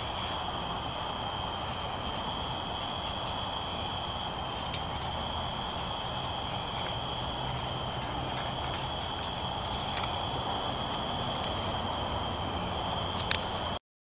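Insects trilling in a steady, unbroken high drone, with rustling and a few light clicks from the camera being handled. The sound cuts off abruptly near the end.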